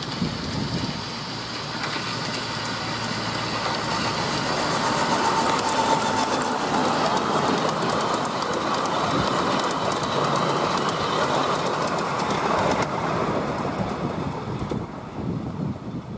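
Miniature railway train passing close by, growing louder as it approaches, then fading: the carriage wheels clatter and click over the rail joints, with a faint brief whine about five seconds in.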